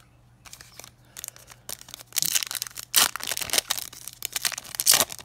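Panini Prizm trading-card pack's foil wrapper being crinkled and torn open by hand: a run of sharp crackles and rips, loudest about three seconds in and again near the end.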